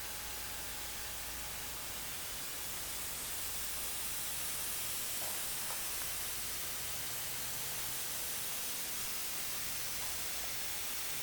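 Steady hiss of broad noise, slightly louder after about three seconds.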